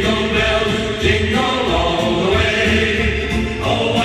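Christmas record playing on a Technics SL-1200MK3D turntable: voices singing together over a steady bass beat.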